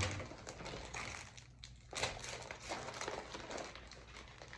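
Plastic packaging rustling and crinkling as hands dig through a poly mailer bag and pull out a small bagged item, with a few sharper crackles about two seconds in.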